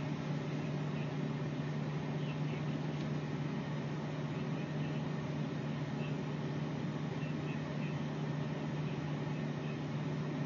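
A steady low electrical hum over an even background hiss, unchanging throughout, with no distinct events.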